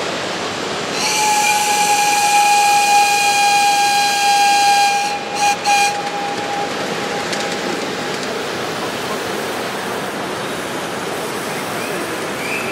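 Steam whistle of a live steam model locomotive: one long blast of about four seconds, then two short toots, over a steady hiss.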